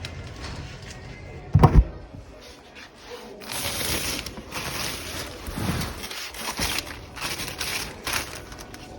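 Handling noise: a heavy thump about one and a half seconds in, then several seconds of irregular rustling and scraping.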